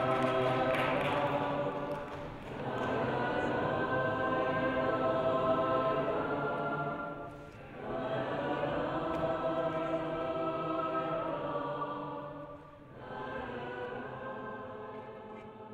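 Several voices singing long held notes together in harmony, in long phrases with short breaks between them, fading near the end.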